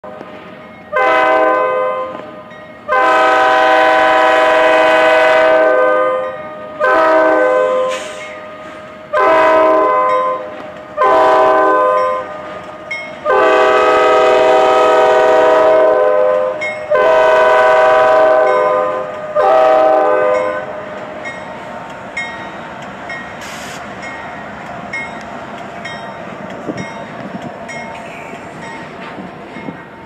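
Norfolk Southern freight locomotive's air horn sounding a chord in a drawn-out horn show of eight blasts over about twenty seconds, mostly short, with two long blasts of about three seconds each. After about twenty seconds the horn stops and the passing train's rumble and wheel clatter carry on.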